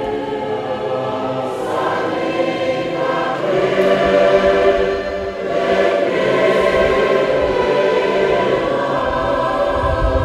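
A Fijian church congregation singing a hymn together as a choir, many voices held on long sustained notes, with a short breath between phrases about halfway through.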